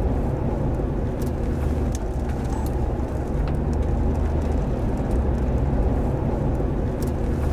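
Strong tornado winds buffeting the microphone: a steady, heavy low roar, with a few sharp ticks scattered through it.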